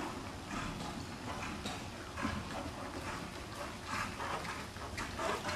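A dressage horse moving under saddle on soft arena footing. Its hoofbeats fall in a steady rhythm, about one every half to two-thirds of a second.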